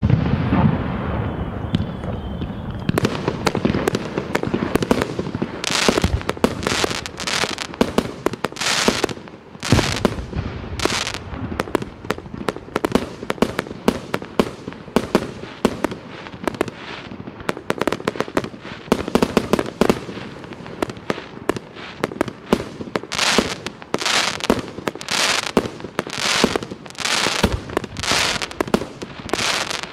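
A 49-shot fireworks cake firing: a quick, uneven string of shots launching and bursting, one after another, after a quieter first few seconds.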